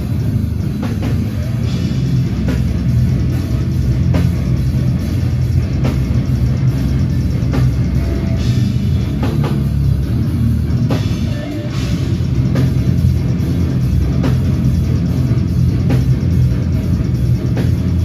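A death metal band playing live at full volume: heavily distorted guitars and bass with a strong, dense low end, and a pounding drum kit.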